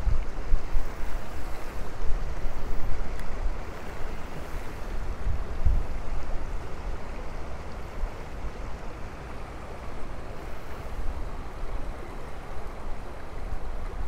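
Shallow creek water running steadily, with wind gusting on the microphone as a low, uneven rumble.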